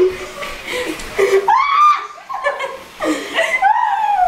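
Girls laughing, with two drawn-out high-pitched squeals, one about a second and a half in and one near the end.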